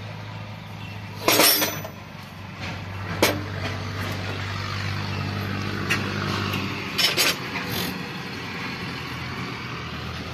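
Diesel tractor engine running steadily at idle, with sharp metallic clinks over it: the loudest about a second and a half in, others around three and seven seconds in.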